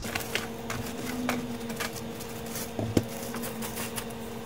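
Scattered light clicks and taps from handling, with one sharper knock about three seconds in, over a steady low hum.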